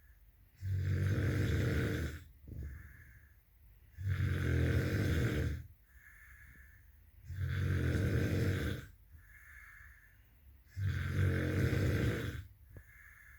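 A sleeping person snoring: four long, low snores, about one every three seconds, with fainter breathing between.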